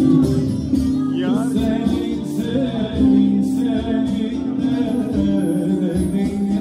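Bağlama (long-necked Turkish saz) and acoustic guitar playing a Turkish folk tune live, with a man's singing voice over the strings.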